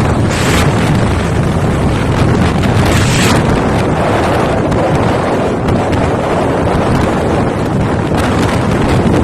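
Wind rushing over the microphone of a moving motorcycle, a loud steady rumble and hiss, with short sharper gusts of hiss about half a second in, around three seconds in, and near the end.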